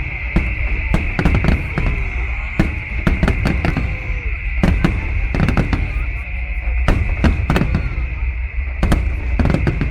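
Fireworks display: a rapid, irregular run of bangs and crackles from bursting shells over a steady low rumble.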